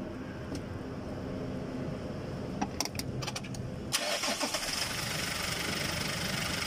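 Toyota Hiace diesel engine started after an oil change: a few clicks, then the engine catches about four seconds in and runs steadily at idle.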